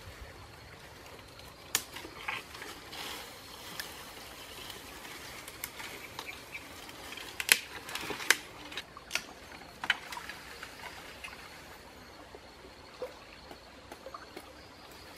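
Tree branches being climbed on: scattered sharp snaps, cracks and knocks of wood with leaves rustling, busiest about halfway through.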